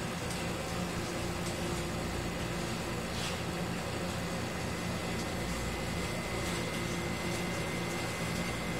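Aquarium pump running steadily: a low mechanical hum under a noisy hiss, with a faint high whine joining about three seconds in.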